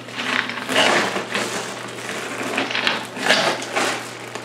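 Plastic bags of loose brass .45 ACP cartridges rustling and clinking in irregular bursts as they are pulled out of a PVC pipe and set down on a table.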